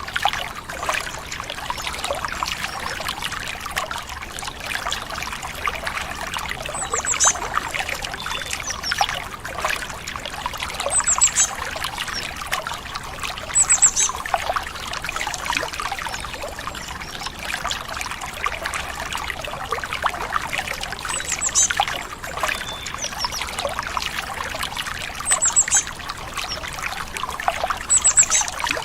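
Water trickling and babbling steadily over stones, like a small stream, with a bird's short, high chirps repeating six times, a few seconds apart.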